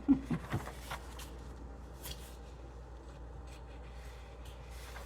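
Pages of a paperback book being turned and handled: a cluster of soft taps and paper rustles in the first second, then a few faint rustles.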